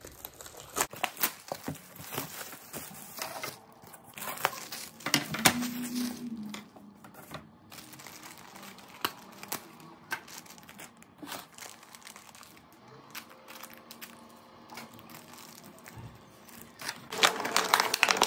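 Plastic packaging being torn open and crinkled by hand, with scattered sharp clicks and taps; the crinkling is loudest near the end.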